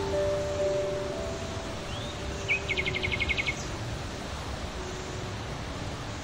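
A bird's rapid trill of about a dozen high notes, after a short rising chirp, near the middle, over a steady outdoor hiss. Soft background music with held notes plays in the first half.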